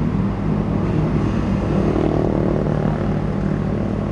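Excavator's diesel engine running steadily, its note swelling briefly about two seconds in.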